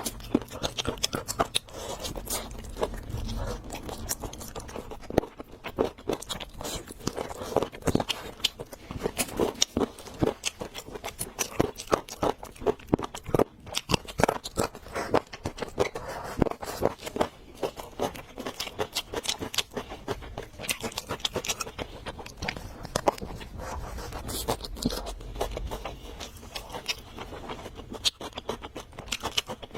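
Close-miked eating: chewing, biting and crunching of food, a dense run of irregular sharp clicks and crackles.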